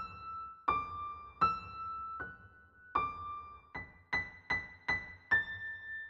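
Background music: a slow melody of single high notes on a keyboard instrument, each struck and left to ring and fade, quickening to several notes a second near the end.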